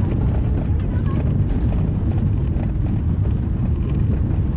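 Car driving on a gravel road: a steady low rumble of tyres on gravel and engine running.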